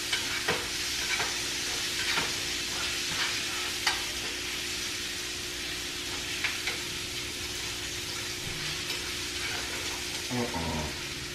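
Steak and onions frying in a pan on the stove: a steady sizzle, with a few light clicks and scrapes of a utensil against the pan.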